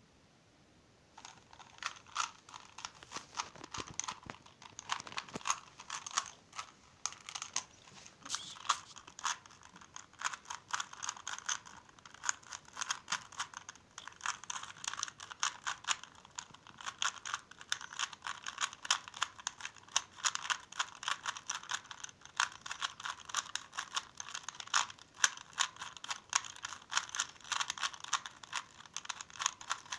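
3x3 Rubik's cube being turned fast by hand: a dense, irregular run of plastic clicks and clacks as its layers are twisted, starting about a second in.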